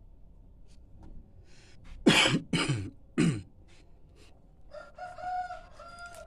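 Red junglefowl cock calling: three loud, harsh calls falling in pitch in quick succession, then a steadier, higher call broken into a few parts near the end.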